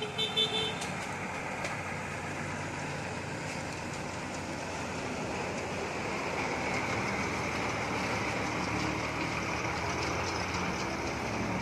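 Heavy multi-axle dump truck loaded with soil driving slowly past, its diesel engine running steadily. A vehicle horn sounds briefly in the first moment, and a high whine grows stronger in the second half.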